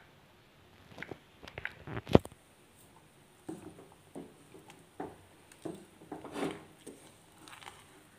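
Wooden spatula stirring thick, wet barnyard millet pongal in a pressure cooker pot: irregular soft squelching and scraping strokes, with one sharp knock about two seconds in.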